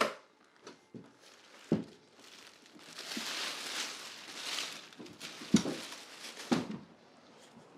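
Packaging being handled while a table saw is unpacked: a stretch of plastic rustling and crinkling, with several sharp knocks and thuds, the loudest about halfway through and again a second later.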